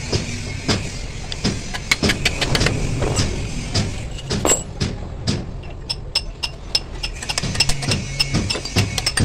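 A hammer knocking repeatedly on a steel truck bell-crank lever, sharp metallic strikes at about two to three a second that thin out around the middle, over a low steady hum.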